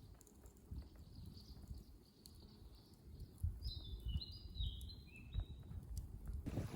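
A wild bird calling a short run of high whistled notes that step down in pitch, over a low outdoor rumble. Just before the end the sound changes suddenly to a louder, even rush of wind noise.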